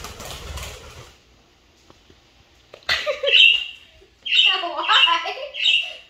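Budgerigar (parakeet): a brief fluttering rustle at the start, probably its wings, then after a pause about three seconds of loud, shrill chirps and chatter.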